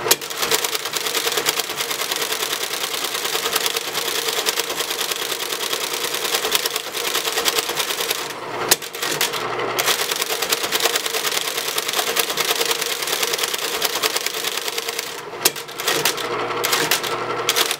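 1959 Friden SFD Flexowriter typing by itself, printing output sent from a PDP-8/E computer: a fast, continuous stream of typebar strikes over the steady hum of its running motor, with two short breaks about eight and fifteen seconds in.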